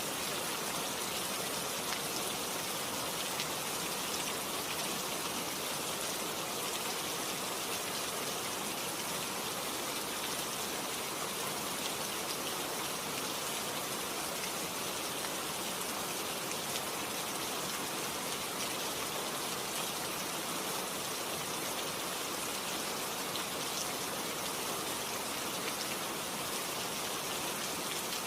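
Steady rain falling, a continuous hiss with faint scattered drop ticks.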